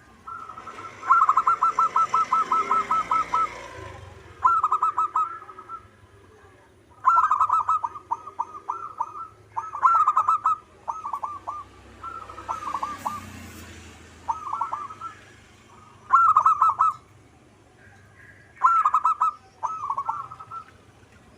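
Zebra dove (perkutut) cooing its song: about a dozen short phrases of rapid, stuttering coo notes, each lasting under a second to about two seconds, separated by short pauses.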